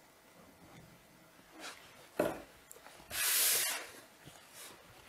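Pencil scratching on note paper while notes are taken: two short scrapes a little under two seconds in, then a longer, brighter hissing stroke about three seconds in.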